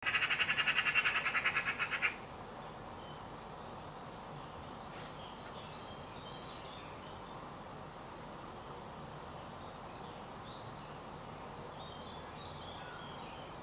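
Eurasian magpie giving its harsh rattling chatter, the alarm call magpies use when mobbing a predator: a fast run of about seven notes a second that lasts two seconds and then stops. Afterwards there are faint chirps from other birds and a short buzzy call about seven seconds in.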